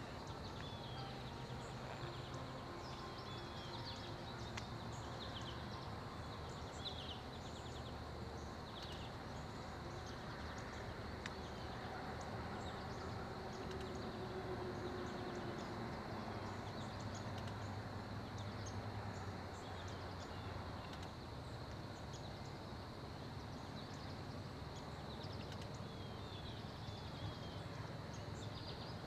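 Outdoor field ambience: a steady high insect drone with scattered short bird chirps over a low steady rumble.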